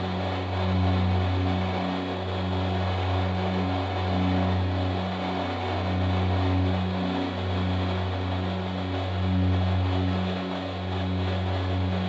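Background music: a slow ambient synthesizer track with a sustained low bass and a repeating pattern of held higher notes.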